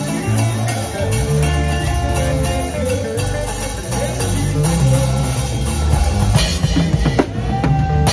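Live band playing an upbeat African groove: a drum kit (bass drum, snare, rimshots and cymbals) driving hard over an electric bass line. About six seconds in, the drumming turns to sharper, separate hits.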